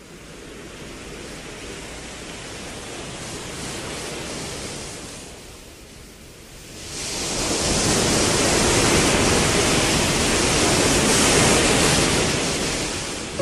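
A rushing noise with no tone in it, swelling slowly, dipping about six seconds in, then rising sharply and holding loud before fading near the end.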